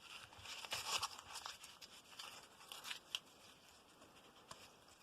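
Faint rustling and tearing of a paper mail envelope being handled and opened, with a few scratchy bursts in the first three seconds, then quieter.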